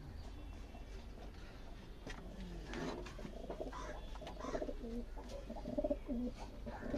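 Several domestic racing pigeons of the Andhra breed cooing in a loft: low, repeated coos overlapping one another, a little busier in the second half.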